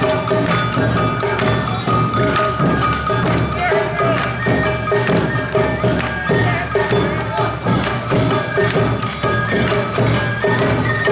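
Live Awa odori narimono band playing: drums and the bright metallic strikes of a kane hand gong keep a brisk, steady beat under a held melody line.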